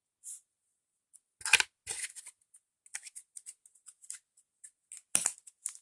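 Hands handling a small plastic toy figure and its packaging: scattered rustles and light clicks, with two louder rustles about a second and a half in and near the end.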